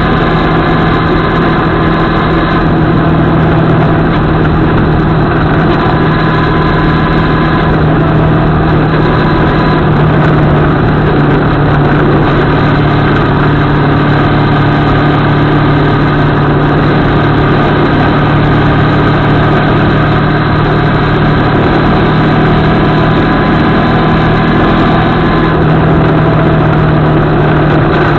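CFMoto 650MT's parallel-twin engine running at a steady cruise, picked up by a camera mounted on the bike, with a dense rush of noise under the engine note. The engine's pitch holds nearly steady, dipping slightly near the end.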